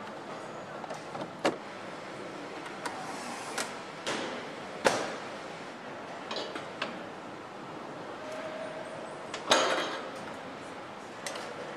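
Motorcycle assembly-line factory ambience: a steady background hum with scattered clicks and clanks of parts and tools being handled. Two louder metallic bangs come about five seconds in and again later, with a brief motor whine just before the second.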